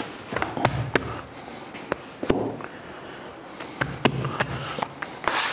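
Soft, wet spelt wholegrain dough being folded over and patted down by hand on a wooden table: irregular soft slaps and sharp taps, with a brushing swish near the end.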